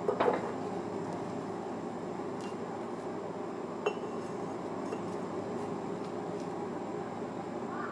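Two sharp metallic clinks, a louder ringing one about a quarter second in and a lighter one near four seconds, over a steady background hum.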